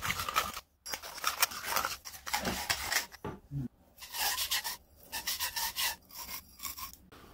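Hand abrasion on the cut end of a copper water pipe: quick repeated scraping strokes, like cleaning or deburring, in irregular bursts with short pauses between them.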